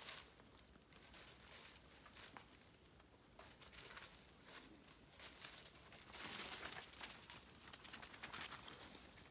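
Near silence with faint, scattered rustling and crinkling, a little louder for about a second around two-thirds of the way through.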